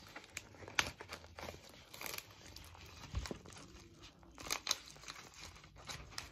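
Plastic poly mailer bag crinkling and rustling in the hands as a thank-you card is pushed into it, in irregular crackles with a louder one about a second in and again past the middle. The 4x8 mailer is a tight fit for the card.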